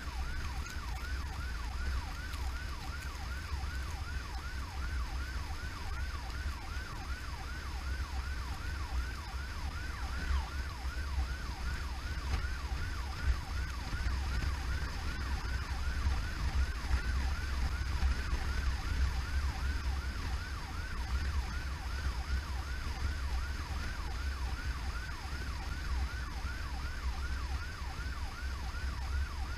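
Emergency vehicle siren on a fast yelp, sweeping up and down in pitch about two to three times a second without a break, over the steady low rumble of a vehicle's engine and road noise.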